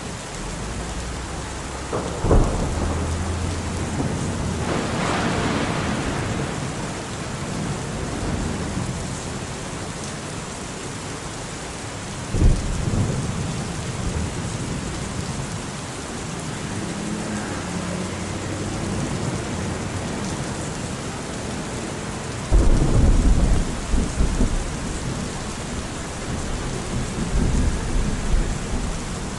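Rainstorm ambience: a steady hiss of falling rain with several low rumbles of thunder, the loudest and longest starting about 22 seconds in.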